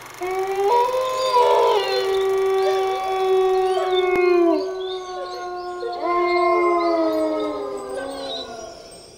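Several canines howling together: long, overlapping howls that slide down in pitch as they end, a second wave of howls rising about six seconds in and then fading out.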